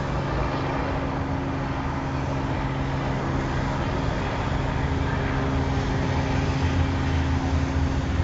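Cars driving past on the street, engine and tyre noise over a steady low hum, growing a little louder near the end.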